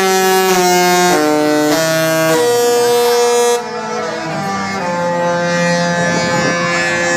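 Disney cruise ship musical horns play a tune in held notes that step in pitch about every half second, with one longer note in the middle. About three and a half seconds in, the loud, bright horn stops and a quieter, duller horn carries the tune on.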